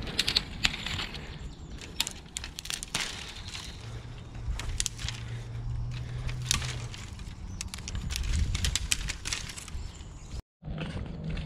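Dry sticks and twigs snapping and leaf litter rustling as firewood is gathered from the woodland floor, a string of sharp irregular cracks over a steady rustle.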